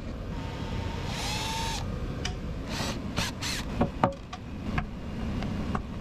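A power drill-driver whirring briefly about a second in as it works a stubborn screw that will not back out, followed by scattered clicks and scrapes of the bit against the screw head.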